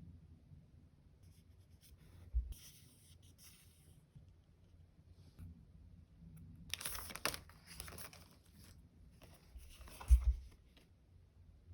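Sticker sheets and paper being handled close up: rustling and peeling in three bursts, with two short thumps, the second the loudest.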